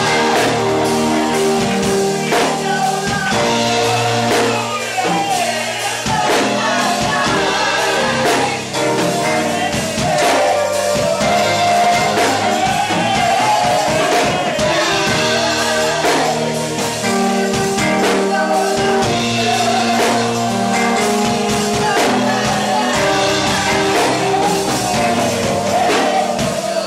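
A woman singing a gospel song into a microphone over a live band: drum kit with cymbals, held chords and bass, all through the church's amplification.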